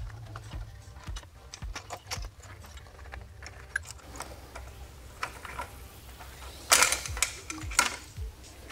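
Small plastic and metal clicks, taps and rattles as the exhaust-valve servo and its cables are manipulated out of a motorcycle's frame, with two louder scrapes near the end.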